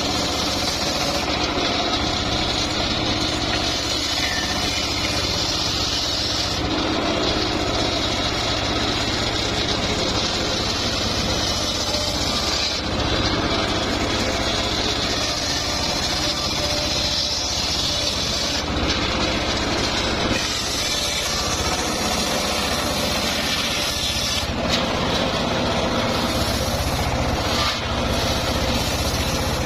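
Homemade table circular saw running steadily and ripping mahogany boards lengthwise. The cutting noise swells and falls back several times as each board is fed through the blade.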